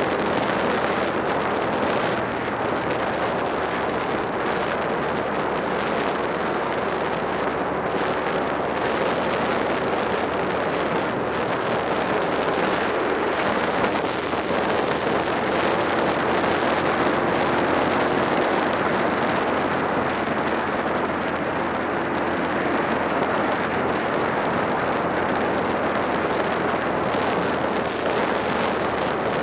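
Suzuki SV650 motorcycle cruising at a steady speed: wind rushing over the microphone, with the V-twin engine's steady drone beneath.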